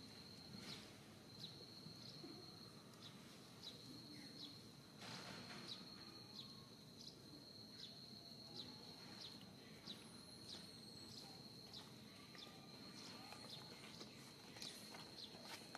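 Faint outdoor ambience: a steady high-pitched insect drone that pulses about every three-quarters of a second, with scattered faint clicks.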